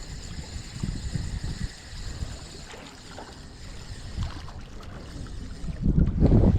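Wind buffeting the microphone in uneven gusts, with a much louder gust near the end.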